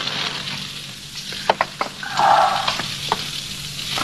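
Fire in an open fireplace crackling and hissing steadily, with several sharp snaps, three close together about a second and a half in and another near the end. A short louder sound rises over the hiss just past two seconds in.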